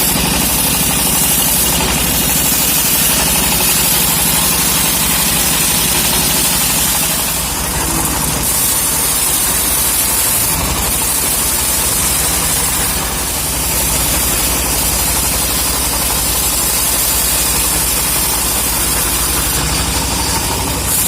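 A saw's engine running steadily and loudly, with a high hiss that rises and falls every few seconds, as when timber is being cut.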